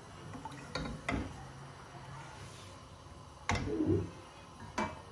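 Silicone spatula stirring sugar and water in a metal saucepan to dissolve the sugar, knocking against the pan twice about a second in, a louder clatter past the middle and once more near the end, over a low steady hum.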